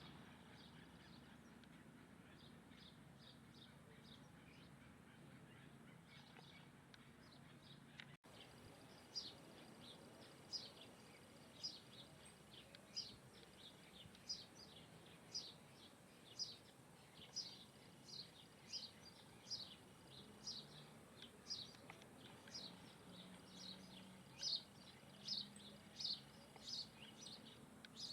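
A bird giving short, high chirps over and over, at roughly one or two a second, faint at first and louder from about eight seconds in.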